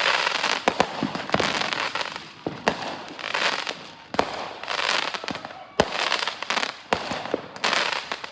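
Consumer fireworks going off: sharp cracks and bangs scattered through, with swells of hissing and crackle about once a second.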